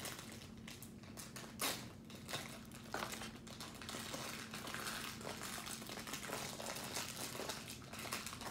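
Thin plastic wrapper crinkling on and off as a small wrapped toy piece is unwrapped by hand.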